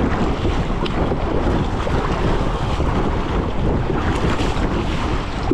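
Wind buffeting the microphone over choppy sea, with waves washing and splashing against a sit-on-top kayak as it is paddled: a steady, loud noise with no let-up.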